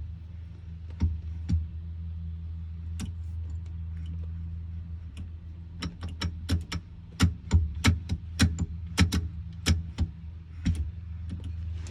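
K-Tuned shift box being rowed through the gears: a run of sharp metallic clicks and clunks, sparse at first and then coming quickly several times a second in the second half, over a steady low hum.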